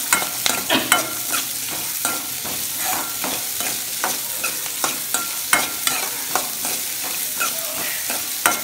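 Chopped onions sizzling in hot oil in a metal kadai while a metal spatula stirs and scrapes them, knocking the pan in irregular strokes. Some knocks leave the pan ringing briefly.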